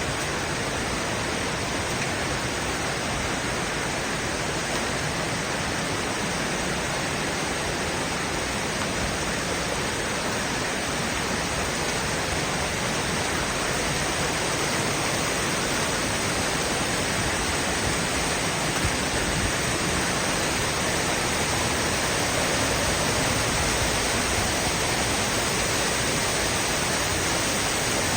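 Steady rushing of creek water cascading through a narrow canyon, growing slightly louder over the second half.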